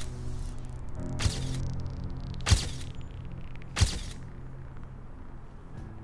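Dramatic film-score music: sustained tones with three sharp, loud hits about a second and a quarter apart, fading after the last hit.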